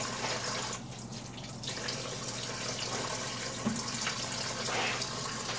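Kitchen tap running in a steady stream while strawberries are rinsed under it; the sound of the flow thins for about a second, a little under a second in.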